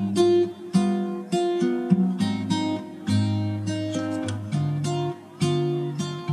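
Background music played on acoustic guitar: plucked and strummed notes and chords about twice a second, each ringing out and fading.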